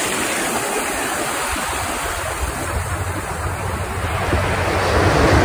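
Ocean surf washing up the beach and swirling through shallow water, a steady rushing noise that swells a little near the end, with wind rumbling on the microphone.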